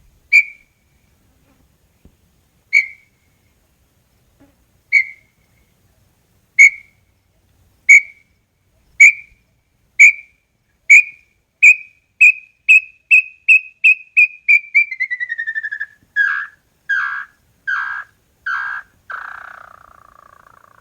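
Small-billed tinamou (inhambu-chororó) singing: clear whistled notes, slow at first, then quickening into a rapid run that falls in pitch. The song ends in a few lower, longer notes.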